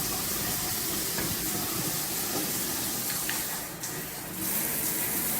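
Shower water spraying steadily, with a brief drop in the flow about three and a half seconds in before it comes back at full strength.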